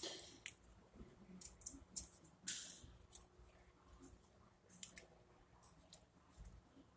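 Faint, scattered clicks and scrapes of hand tools and a feeler gauge on metal as the valve clearance is worked on the engine of a Polaris Sportsman ATV, with one longer scrape about two and a half seconds in.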